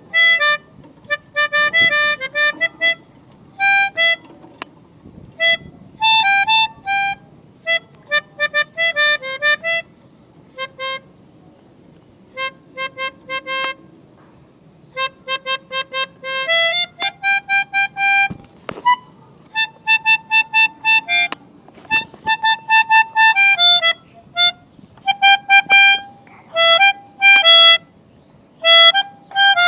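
Multi-tone telolet horn playing a tune in short honks, often several notes sounding together as chords, in quick phrases broken by brief pauses.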